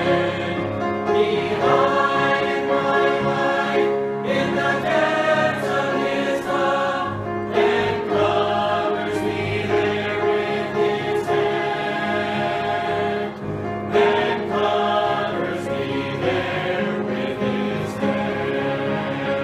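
Congregation singing a hymn with piano accompaniment.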